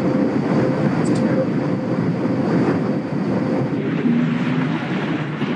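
Steady, loud rush of airliner cabin noise in flight: engine and airflow noise with a faint steady hum.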